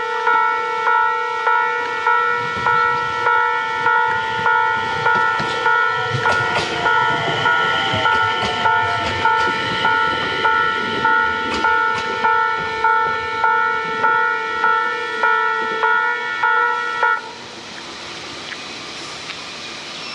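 Japanese railway level-crossing warning bell ringing, a loud multi-tone clang repeating a little under twice a second, which cuts off suddenly about seventeen seconds in. Partway through, a low rumble and a falling tone as a train passes the crossing.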